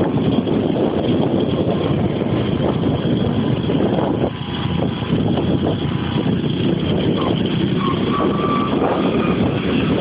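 Steady, unbroken running noise of a moving road vehicle heard from on board, a dense sound sitting mostly in the low and middle range.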